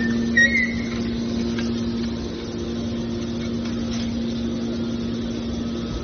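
Hydraulic scrap metal baler running: a steady, even hum from its power unit, with a short high squeal about half a second in.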